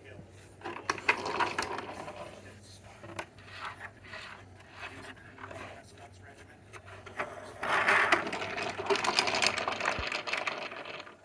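Irregular clicks, knocks and scraping, as of hard objects being handled, with a louder stretch of continuous scraping and rattling about eight seconds in.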